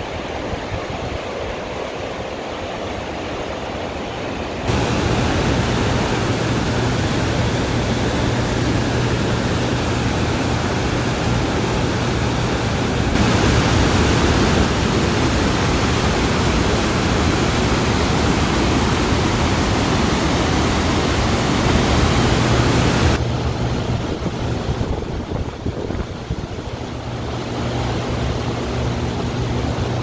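Upper Spokane Falls on the Spokane River: whitewater rushing over the falls and rapids in a loud, steady rush of water noise. The rush steps louder about five seconds in and again around thirteen seconds, then eases back after about twenty-three seconds.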